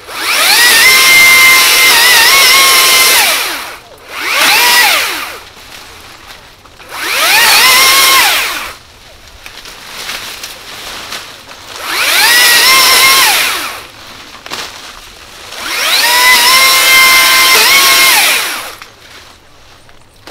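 Makita DUA301 cordless pole saw's brushless motor and chain running in five bursts as it cuts into branches, each burst spinning up to a high whine and winding back down; the pitch wavers under the load of the cut.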